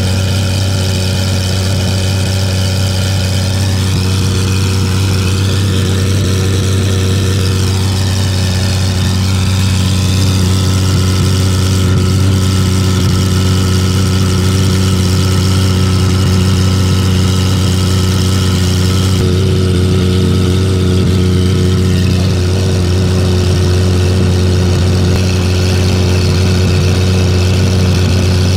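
A loud, steady engine drone holding one pitch throughout, with no revving.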